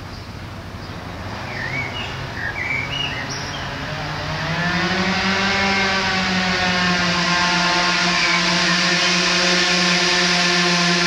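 Birds chirping briefly, then a loud, steady droning hum with a clear pitch swells in about four seconds in, rising slightly before it settles and holds.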